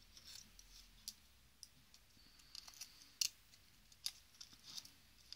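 Small plastic and metal parts of a BlackBerry 957 handheld clicking and tapping as they are fitted back together by hand. The clicks are faint and scattered, with a sharper click about three seconds in and another about a second later.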